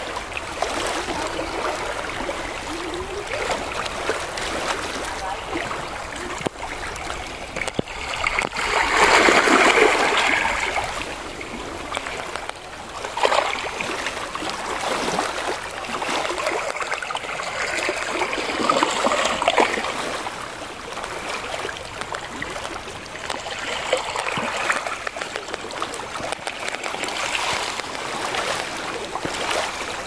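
Small waves lapping and washing over rocks along a rocky shoreline: steady splashing and trickling water that swells and ebbs. The loudest surge comes about nine seconds in.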